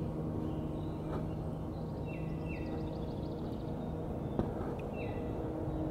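A steady low engine drone over river ambience, with a bird repeating a short falling two-note call and giving a brief trill. A sharp knock comes about four seconds in.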